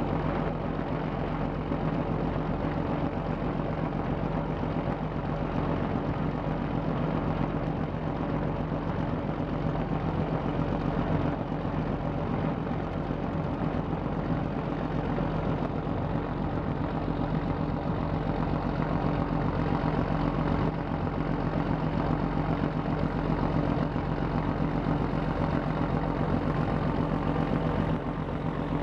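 A boat's diesel engine running steadily: a low, even hum that stays at one pitch, with no rise or fall as the cargo ship passes close by.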